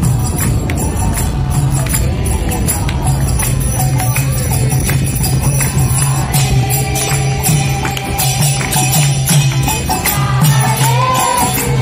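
Devotional kirtan music: a harmonium playing a melody over a steady beat of jingling hand cymbals (kartals), with voices singing along.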